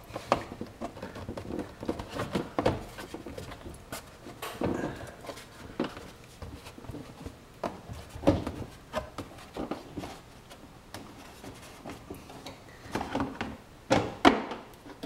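Plastic wheel-well parts being handled and slid back into place by hand: irregular knocks, clicks and scraping of plastic against the car body, with a few louder knocks near the end.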